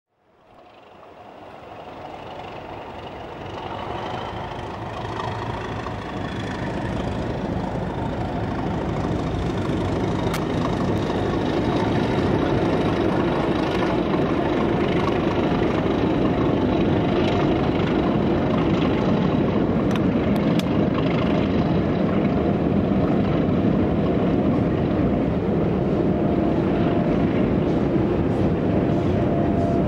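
Steam locomotive 60019 Bittern, a three-cylinder LNER A4 Pacific, working a passenger train across a railway bridge: its steady exhaust and the train's rumble swell up over the first ten seconds or so as it approaches, then hold loud and even.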